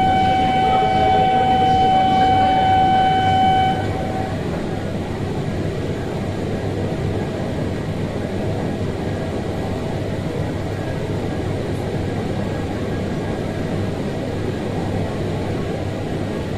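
Standing E8 series shinkansen at an underground platform: a single steady tone with overtones sounds for the first four seconds and cuts off abruptly. After it comes a steady rumble and hum.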